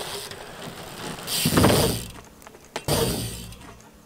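BMX bike riding up a wooden kicker ramp and taking off into a backflip: a loud rush of tyre and ramp noise a little over a second in, then a sharp knock and a second rush of noise about a second later.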